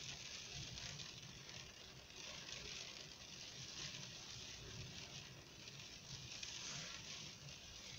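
Faint, steady patter of rain with wind noise.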